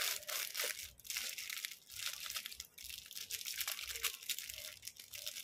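Irregular crinkling and rustling of plastic as an anti-snoring mouthpiece and its packaging are handled and worked open.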